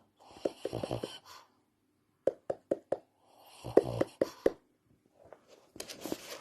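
Shih Tzu making snore-like snorting breaths while awake. They come in three short bouts, each with a quick rattle, and a row of four sharp clicks falls between the first two. The sound is the sign of a breathing problem.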